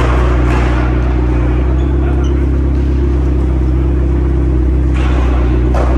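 McLaren supercar's twin-turbo V8 idling steadily with a deep, even rumble.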